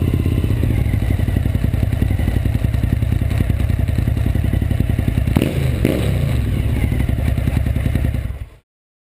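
Suzuki SV1000S's 90-degree V-twin engine running at low speed with a steady pulsing beat, a sharp knock about five seconds in, then the sound cuts off suddenly near the end.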